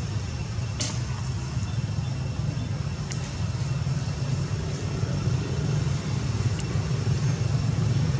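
Steady low rumble with a light hiss, broken by a few short faint clicks.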